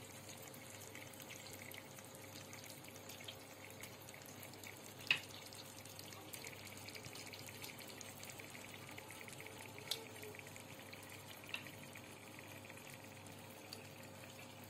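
Faint sizzling and crackling of masala in a pan as raw chicken pieces are laid into it by hand, with a few sharp clicks, the loudest about five seconds in.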